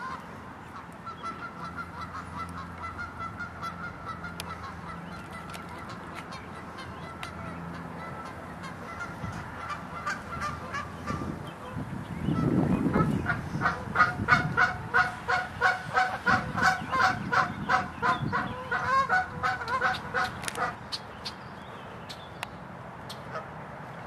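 Canada geese calling: fainter, thinner calls over the first half, then about halfway through a brief low rumble and a loud, fast run of honks, two or three a second, lasting about eight seconds before stopping.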